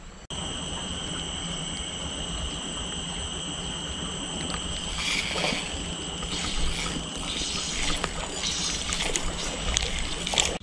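Spinning reel being cranked to retrieve a lure, with light irregular clicking from about five seconds in, over a steady high-pitched drone and a low outdoor rumble.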